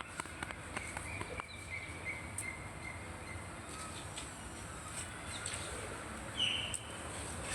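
Outdoor background noise with birds chirping faintly: a thin held note a second and a half in and a short, louder chirp about six and a half seconds in, over scattered faint clicks.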